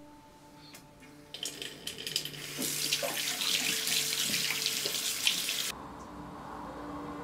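Water running from a bathroom tap into a washbasin as hands are rubbed under the stream. It starts about a second in, grows louder, and cuts off suddenly near the end.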